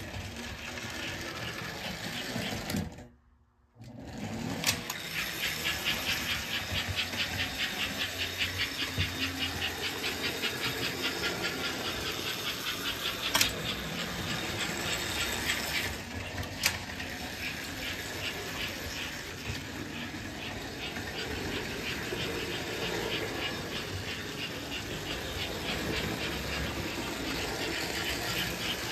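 American Flyer S-gauge toy trains running: the locomotive's electric motor whirring and the wheels clattering over the track in a fast, even rhythm. A few sharp clicks sound from the switch controller being thrown. The sound drops out briefly about three seconds in.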